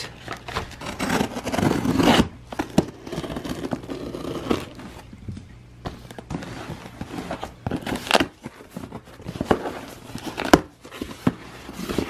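Hands handling packaging and opening a taped cardboard shipping box: irregular crinkling, scraping and tearing with scattered clicks and rustles.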